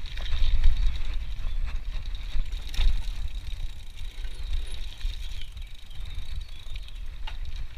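Mountain bike rolling fast down a dirt forest trail, heard from a chest-mounted action camera: wind buffeting the camera as a heavy low rumble, with the bike rattling over the rough ground. A few sharper knocks come from bumps, one about three seconds in and another near the end.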